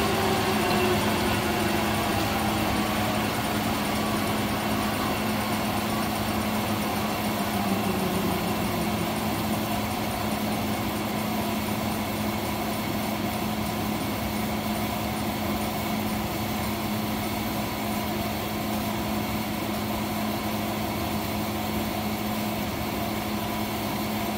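Leblond Regal Servo Shift engine lathe spindle coasting down: the headstock gear whine falls steadily in pitch over the first several seconds as the chuck slows to a stop. A steady hum carries on underneath.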